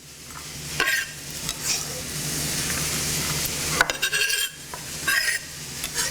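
Onions and peaches sizzling steadily in a frying pan, with a few short scrapes and clicks of kitchen utensils, the longest a little under halfway through.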